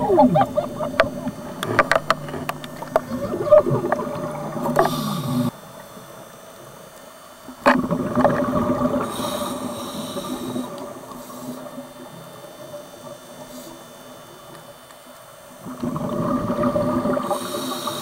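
Scuba diver breathing through a regulator underwater: long bursts of exhaled bubbles, three of them, with quieter gaps between for the in-breaths.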